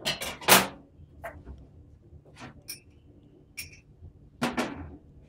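Kitchen utensils knocking and clinking at the counter: a spoon tapping against a small cup and containers being handled and set down while cream is mixed. A string of separate knocks, the loudest just at the start and again near the end, a few with a short ringing clink.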